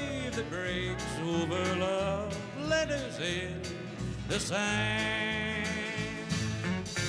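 Live bluegrass-style country music: strummed acoustic guitar with band backing and a melody line that slides between notes, then holds a long, wavering note from about four and a half seconds in.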